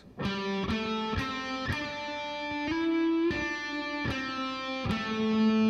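Electric guitar playing a single-note A minor pentatonic lick, sliding up the neck from one scale box to the next: notes picked roughly two a second, one note sliding up about halfway through, ending on a long held note near the end.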